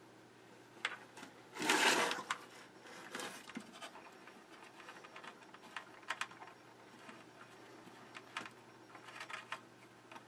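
A metal-cased power supply and its plastic mains cover being handled on a workbench: a louder scrape about two seconds in as the unit is turned on its side, then light clicks, taps and rubbing as the cover is fitted and an Allen key set to its screws.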